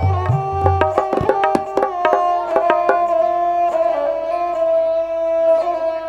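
Tabla playing a quick run of strokes, with the deep bass drum pulsing at first, over steady held notes from a melody instrument. The drumming stops about halfway through and the held notes carry on alone.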